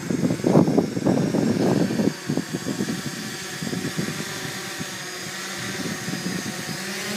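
Multirotor camera drone's motors and propellers buzzing steadily as it hovers, the hum getting louder and rising slightly in pitch near the end as it comes close. Uneven low buffeting is heard in the first couple of seconds.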